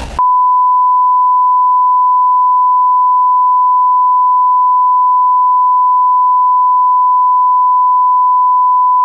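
A single unbroken electronic beep: one steady pure tone at about 1 kHz. It cuts in just after a loud noisy blast stops at the very start and holds at an even level throughout.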